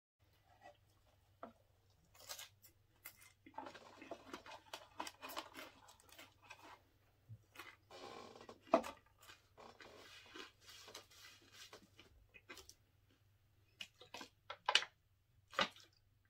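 Cardboard takeout boxes being folded shut and handled: rustling and crackling of the card, with scattered sharp taps and clicks, over a steady low electrical hum.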